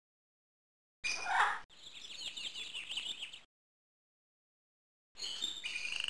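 Short clips of rainforest animal calls between stretches of dead silence: about a second in, a single call sliding down in pitch, then about two seconds of fast, high chirping chatter; just after five seconds, a high trill pulsing rapidly on one steady pitch.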